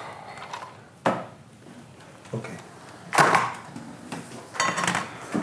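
Handguns being set down on a table: a handful of separate clunks and knocks spread over the few seconds, the loudest about three seconds in.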